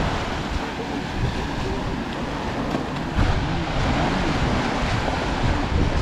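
Small waves breaking and washing up on a sandy shore, with wind rumbling on the microphone that gets heavier about halfway through.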